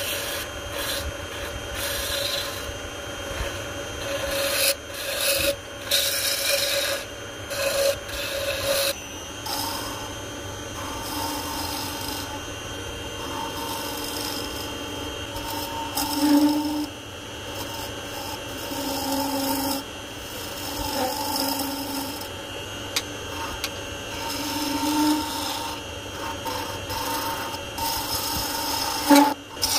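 Ebony spinning on a wood lathe being cut with a hand-held gouge: hissing, scraping cuts in repeated short passes over a faint steady machine hum. The cuts are heaviest in the first several seconds.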